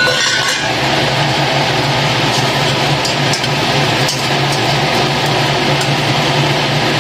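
Saucepan of pork and napa cabbage boiling hard on a gas burner: a steady, loud bubbling hiss, with a few light clicks of metal tongs against the steel pan about three to four seconds in.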